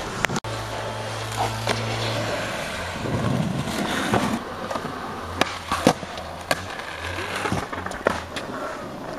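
Skateboard wheels rolling on concrete, broken by several sharp clacks of the board hitting the ground.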